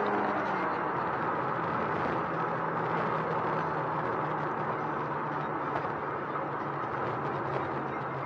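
Cabin noise of a 2019 Mustang EcoBoost (2.3-litre turbocharged four-cylinder) driving at speed: a steady engine drone under road and tyre noise, not revving up, slowly getting quieter. A single sharp click comes right at the start.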